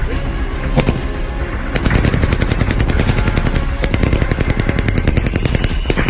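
Machine gun firing at an armoured vehicle in a ballistic test of its bulletproof glass: a single shot, then about a second later a long burst of rapid automatic fire lasting about four seconds.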